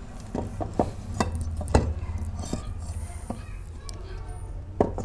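Light clinks and knocks, about seven separate taps, as the bare aluminium crankcase of a TVS XL Super moped engine and the tools around it are handled and turned over, all over a steady low hum.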